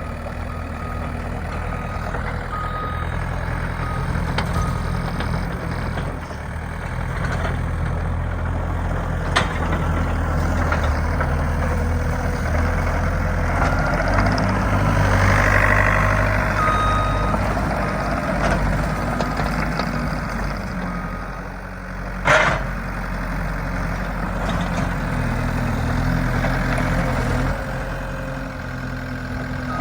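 Case TR270 compact track loader's diesel engine running, its speed rising in the middle and easing off again, with a backup alarm beeping in short bursts at times. A sharp knock is heard about nine seconds in and a louder one about twenty-two seconds in.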